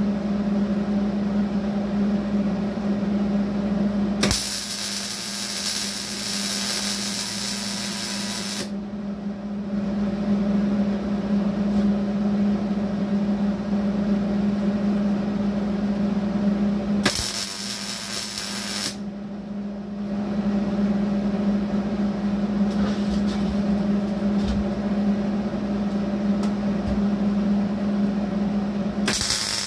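MIG welder laying short stitch welds on thin steel to reinforce it: three runs of steady arc crackle and hiss, about four seconds long starting some four seconds in, a shorter one of about two seconds past the middle, and one starting just before the end, over a steady low hum.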